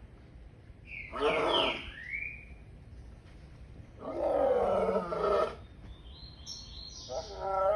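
A lion roaring: three short roars, each a second or so long, spaced about a second and a half apart.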